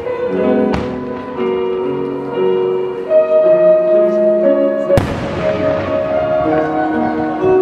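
Music with sustained notes plays throughout. An aerial firework shell bursts with a sharp bang and a long echoing tail about five seconds in, and a smaller crack comes just under a second in.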